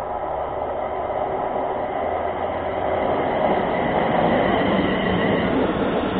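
London Midland Class 350 Desiro electric multiple unit approaching and running in alongside the platform. Its wheel and running noise swells, loudest about four seconds in.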